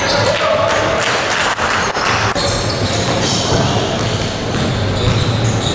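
Basketball game on a hardwood court: a ball dribbling and sneakers squeaking as players run the floor, with occasional voices.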